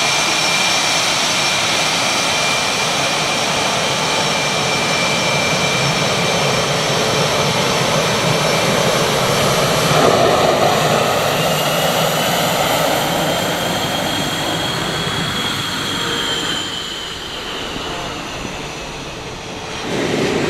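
CF-18 Hornet's twin jet engines running with a steady high whine over the engine noise. About halfway through, one whine tone rises and then falls again, and the sound eases off shortly before the end.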